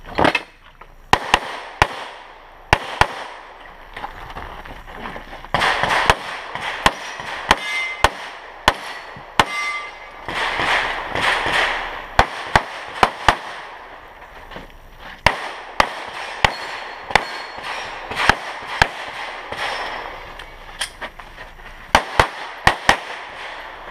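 Handgun shots fired rapidly in quick pairs and short strings, with brief pauses between groups: a competitor shooting a timed practical-pistol (IPSC) stage.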